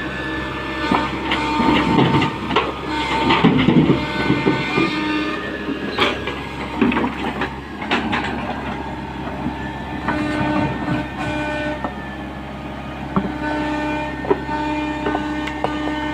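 Excavator's diesel engine running under load, with metal clanks and knocks in the first half and a steady whining tone from about ten seconds in.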